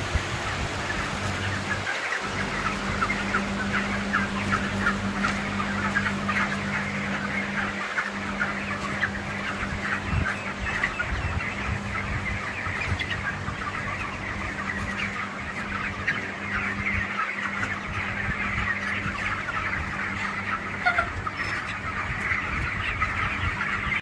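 A large flock of white broiler chickens calling continuously in their shed: many short, overlapping high calls. A steady low hum runs underneath.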